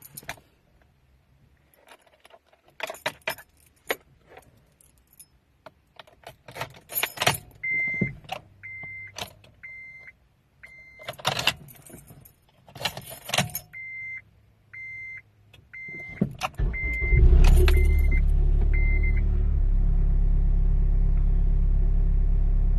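Keys jangling and clicking at the ignition while a car's warning chime beeps repeatedly, about once a second. About three quarters of the way through, the 2006 Acura RSX Type S's 2.0-litre four-cylinder engine fires after an intermittent no-start blamed on a faulty starter, then settles into a steady idle.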